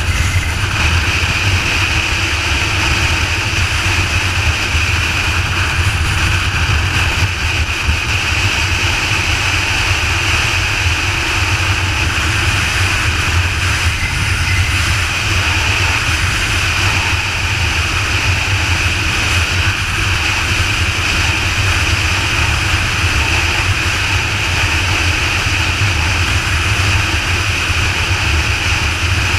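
Motorcycle cruising at steady freeway speed: a constant engine drone mixed with wind rushing over the microphone, with no change in pace.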